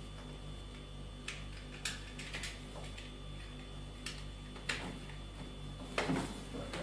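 Plastic drain tube being handled, giving a few scattered light clicks and taps, with a denser bit of handling noise near the end, over a steady low hum.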